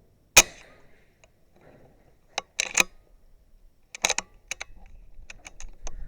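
A single sharp shot from a .22 BSA Superten pre-charged air rifle about half a second in. Several clusters of sharp metallic clicks follow over the next few seconds.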